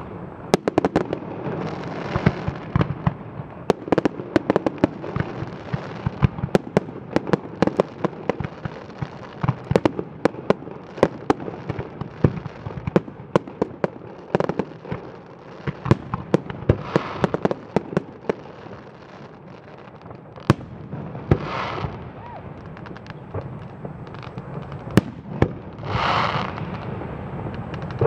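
Fireworks display: a rapid run of bangs and crackles from bursting aerial shells, thinning out after about eighteen seconds, with a few longer hissing bursts in the last ten seconds.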